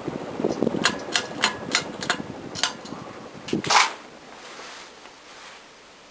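Codep Windsong ceiling fan running with a low rush of moving air. About a second in, a quick series of sharp clicks starts, and a louder knock comes near the four-second mark. After the knock the air noise falls away to a faint steady hiss.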